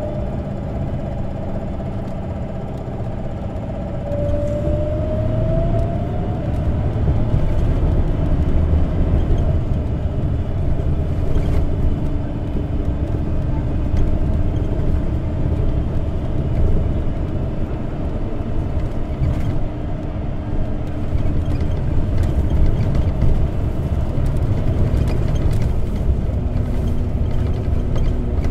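Isuzu Erga natural-gas (CNG) city bus running, heard from inside the passenger cabin: engine rumble and road noise. About four seconds in it grows louder and a whine rises in pitch as the bus picks up speed, then it runs on steadily with a few light rattles.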